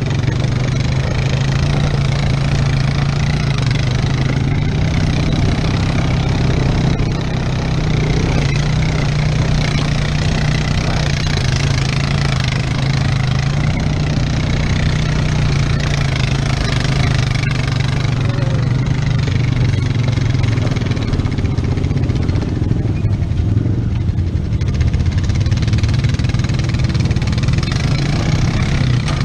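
ATV engine running steadily at low speed under load as it tows a dirt bike on a strap.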